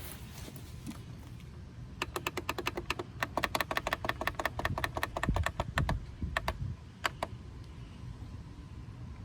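A fast run of sharp plastic clicks, several a second, for about four seconds, then a few single clicks. These are buttons being pressed repeatedly on the air-suspension inflation controller to raise the bag pressure setting to 45 PSI.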